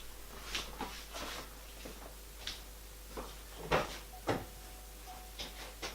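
Several light, scattered knocks and clicks, like things being handled or a latch or panel being worked. The loudest come a little before and after four seconds in.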